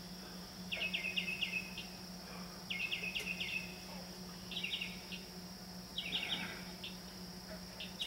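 Northern mockingbird singing at night: four bursts of quick chirping notes, each a run of four or five rapid upswept chips, repeated about every one and a half to two seconds. A steady low hum runs underneath.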